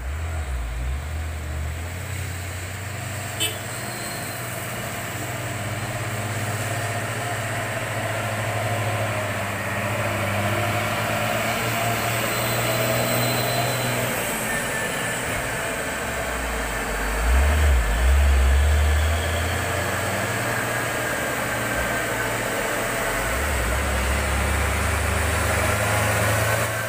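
Diesel engine of a heavily loaded cargo truck labouring slowly up a steep hill, a steady low drone over the hiss of heavy rain and wet tyres. The engine is loudest about two-thirds of the way through, and there is one sharp click early on.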